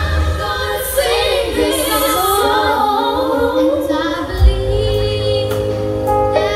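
Music: a woman singing a melody, with a heavy bass coming back in about four and a half seconds in.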